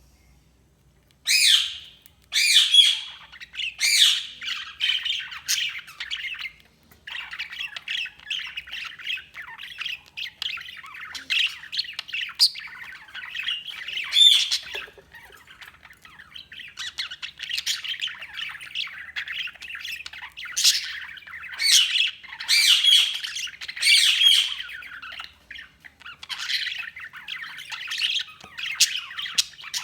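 Budgerigars chirping and warbling without a break, with loud sharp squawks standing out every second or two. It starts about a second in.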